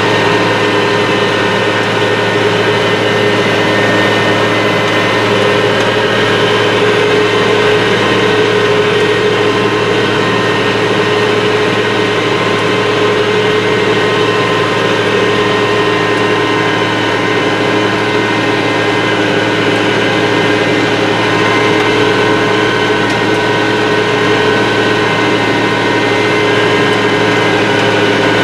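International Harvester 3788 2+2 tractor's diesel engine running steadily under load while pulling a 13-shank chisel plow, heard from inside the cab. The level stays even throughout, with no change in engine speed.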